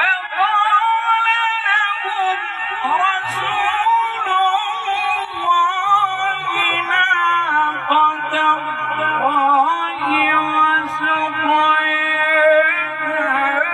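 A man's voice in melodic Quran recitation (tilawat) through a microphone, drawing out long, wavering ornamented notes without pause.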